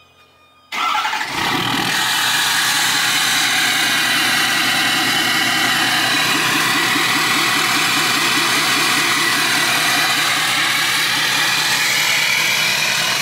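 A 2015 Ford F-250's 6.7-litre Power Stroke diesel, H&S-tuned with a 5-inch straight-pipe exhaust, firing up on remote start about a second in, then settling into a loud, evenly pulsing idle through the open exhaust.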